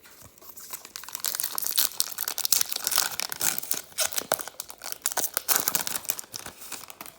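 A trading-card pack wrapper being torn open and crinkled by hand: a dense, irregular crackle that builds from about a second in and stops near the end.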